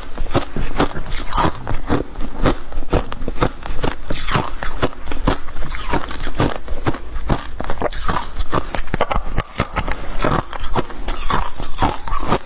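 Freezer frost being bitten and chewed close to the microphone: a dense run of crisp crunches, several a second.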